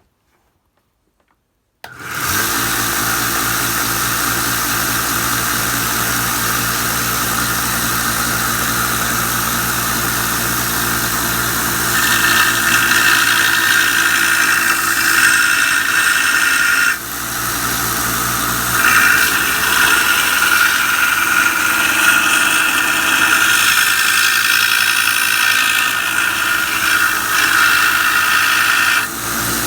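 Belt grinder starting up about two seconds in and running steadily. From about twelve seconds in, the draw knife's steel blade is held against the coarse 40-grit ceramic belt, adding a louder, brighter grinding sound that breaks off briefly and resumes until near the end.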